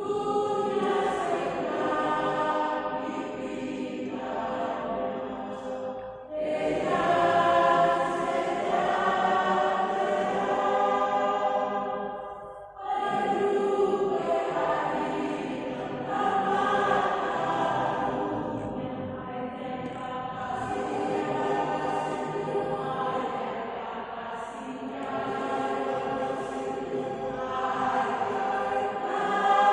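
A choir singing held chords in long phrases, with short breaks between phrases about six and about twelve and a half seconds in.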